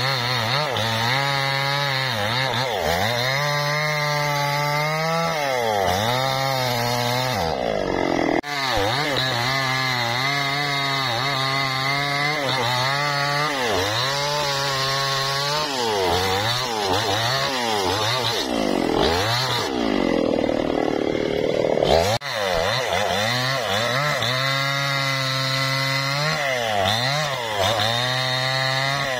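Two-stroke petrol chainsaw cutting through a felled teak log, its engine pitch rising and falling over and over as the chain bites into the wood and eases off. It is broken off abruptly twice.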